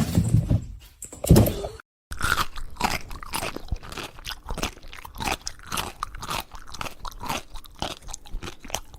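A pet chewing something crunchy up close, with many quick, irregular crunches. A single thump comes shortly before that.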